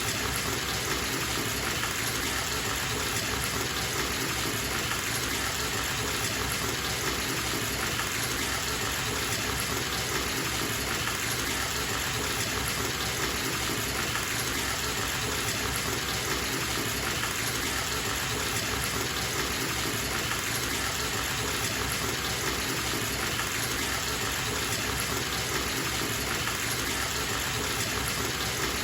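Bathtub tap running full, water gushing into the tub as it fills: a steady, even rush.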